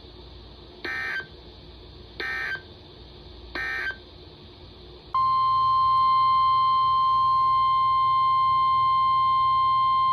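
EAS end-of-message data tones: three short, identical digital bursts about a second and a half apart, marking the end of a NOAA Weather Radio warning. About five seconds in, a steady single-pitch alert tone starts and holds. This is the weather radio's 1050 Hz warning alarm tone that opens the next severe thunderstorm warning.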